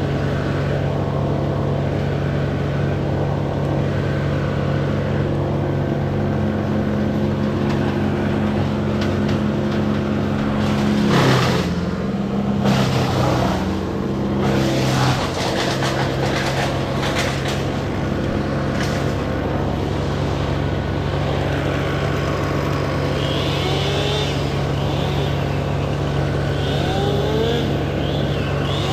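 An engine running steadily. About eleven seconds in, it dips and shifts in pitch for a few seconds, as if under load, while a flurry of cracks and knocks sounds over it.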